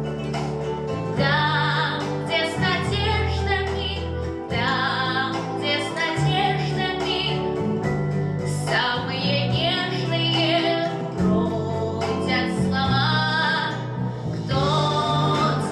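A teenage girl singing a slow song into a handheld microphone, with instrumental accompaniment under her voice.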